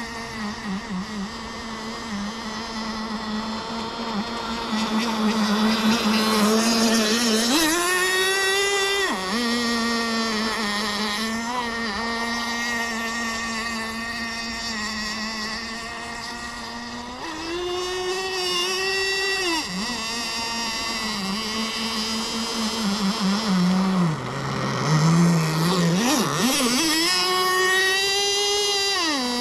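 Kyosho Jetstream 1000 RC boat's GT32 marine nitro engine running on the water at a steady part-throttle pitch. Three times, about ten seconds apart, it revs sharply up, holds high for a second or two and drops back. About two-thirds of the way through it falls briefly to a low idle.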